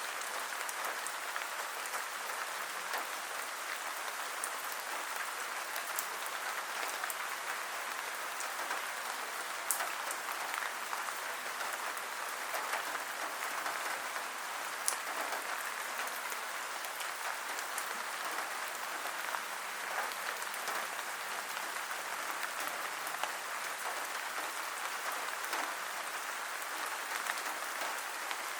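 Steady rain falling, a dense even patter with scattered sharper drops ticking.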